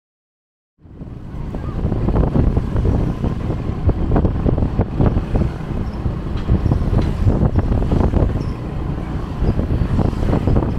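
Wind buffeting and rumbling on the microphone, mixed with road and traffic noise, as it rides on a moving motorbike. It starts suddenly about a second in and then runs steadily.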